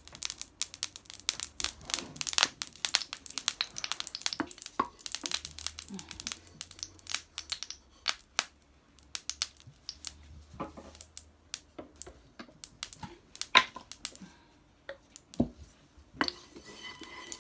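Irregular crackling and popping from oil heating in a wide metal pan, with a wooden spoon moving through it. The pops come thick in the first few seconds, then thin out to scattered clicks.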